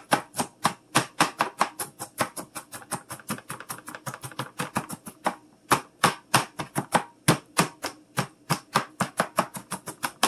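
Kitchen knife rapidly chopping an onion on a cutting board to mince it: a quick, even run of sharp knocks, about five a second.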